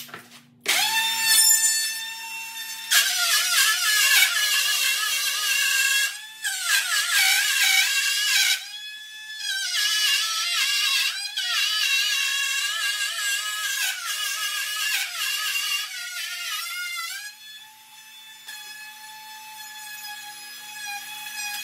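Milwaukee router spinning up with a high whine, then cutting through plywood: the pitch sags and wavers each time the bit loads up in the cut. Near the end it runs free, steadier and quieter.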